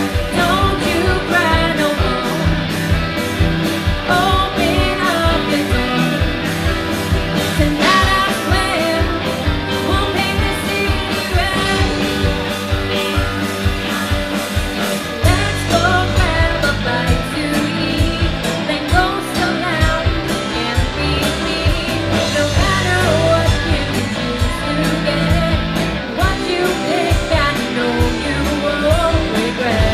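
Live rock band playing, with a female lead singer over drum kit, electric guitar and bass guitar. About halfway through the low end gets fuller as the band plays heavier.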